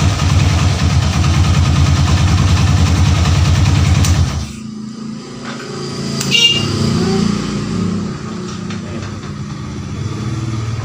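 Single-cylinder four-stroke engine of a Honda Tiger-based trail motorcycle running loud with a fast, even beat. About four seconds in it stops abruptly, leaving quieter mechanical sounds and a sharp clink a couple of seconds later.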